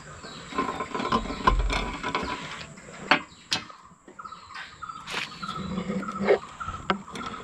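Steel 10 mm bolts squeaking in their threads as they are unscrewed with a T-handle wrench: short squeaks repeating several times a second, thickest in the second half, with a few sharp metal clicks of the tool.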